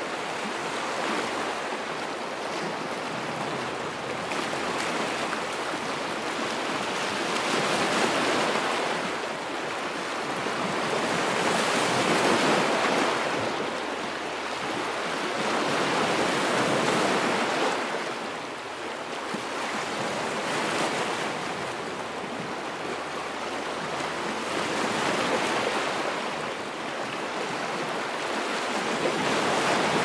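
Ocean surf: a steady rush of waves that swells and fades about every four to five seconds as each wave breaks and washes back.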